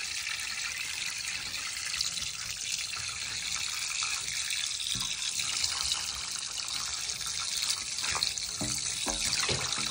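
Water running through a funnel down a 1-1/2-inch PVC condensate drain line in a steady trickling wash, draining freely now that the line has been cleared of sediment and lint. Gurgles break in near the end.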